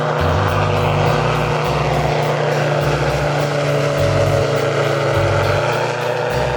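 A steady engine drone mixed with background music whose bass notes change about every half second.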